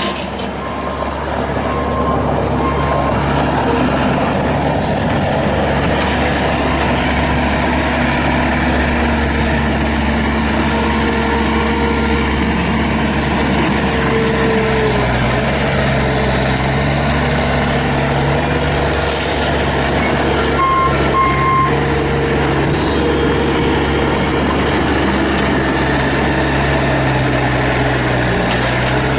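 Bobcat S450 skid steer loader's diesel engine running steadily under load while the machine is driven and worked, its pitch rising and falling every few seconds with throttle and load.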